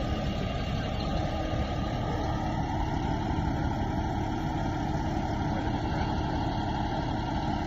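Tree spade truck's engine running steadily, with a faint steady hum under the noise.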